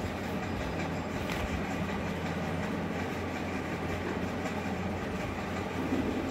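Steady low hum with an even background noise, like a room fan or air conditioner running, with a faint rustle of the knit fabric knee sleeve being handled about a second in.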